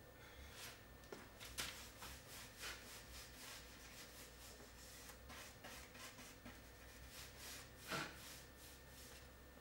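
Faint, repeated swishes of a paintbrush stroking linseed oil paint onto wooden panels, with one slightly louder stroke about eight seconds in, over a low steady hum.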